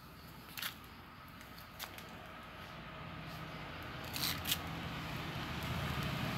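A few light clicks and rustles of handling, over the low engine rumble of a passing motor vehicle that grows steadily louder toward the end.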